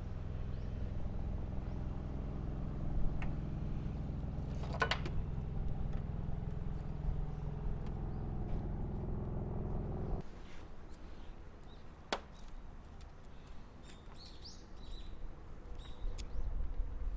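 A motor runs with a steady hum, then stops suddenly about ten seconds in. Scattered sharp clicks and knocks follow.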